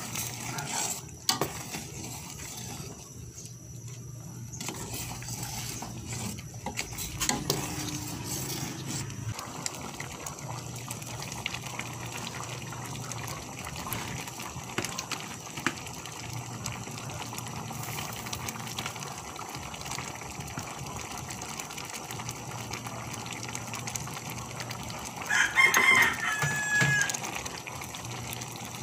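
Mung bean soup bubbling in a stainless steel pot, with a metal ladle stirring and clicking against the pot, mostly in the first ten seconds. A rooster crows once about 25 seconds in, a held call that is the loudest sound.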